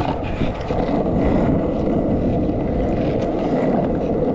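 Steady rolling rumble of small wheels on smooth pavement while riding, with wind noise on the microphone.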